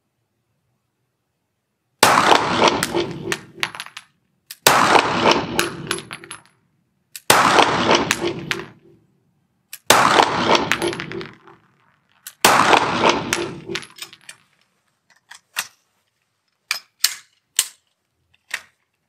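CZ P10 F pistol firing five loud shots at an even pace about two and a half seconds apart, each ringing out in a long echo off the walls of the indoor range. Near the end come lighter sharp metallic clicks as the pistol is handled.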